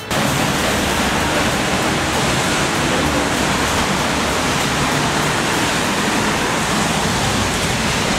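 Heavy rain pouring down, a loud steady hiss with no let-up.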